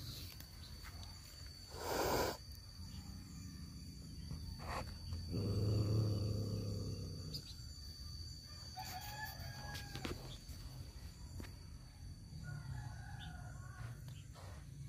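A rooster crowing faintly, twice. A short low rumble about five seconds in is the loudest sound, and a brief rustle comes about two seconds in.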